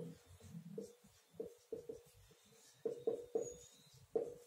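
Marker pen writing on a whiteboard: short squeaky strokes as the letters are drawn, coming in small groups.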